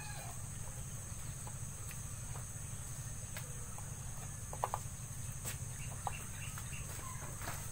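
Chickens clucking faintly now and then over a steady low hum and high hiss, with a few light clicks.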